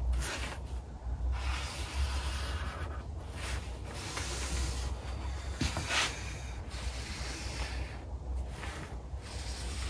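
Sharpie marker rubbing across tent fabric in strokes with short pauses as it traces around a cardboard template, with a steady low hum underneath.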